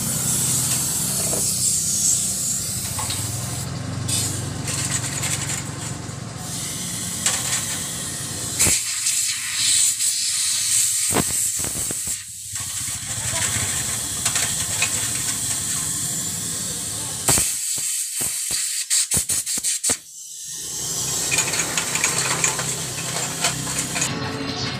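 Compressed air hissing from an air blow gun in long blasts, cutting off and restarting several times, as motorcycle front-fork springs and parts are blown clean during a fork oil and oil-seal change.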